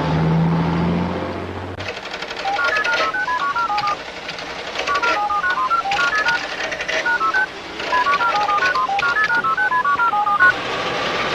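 Electronic computer bleeps: three runs of rapid, short beeps hopping up and down in pitch over a steady clicking chatter. Before them a low held note ends about two seconds in.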